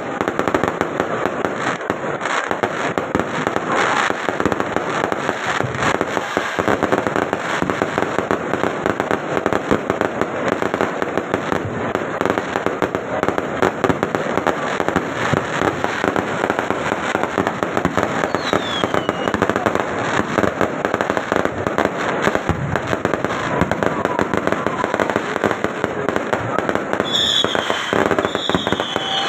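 Fireworks display: a dense, continuous crackle of many rapid small bursts, with a few short whistles falling in pitch in the second half.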